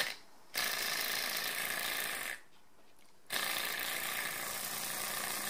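Small flywheel-less Stirling engine running over a gas burner flame: a steady fast mechanical whirr with a hiss. The sound cuts out for about a second in the middle, then resumes.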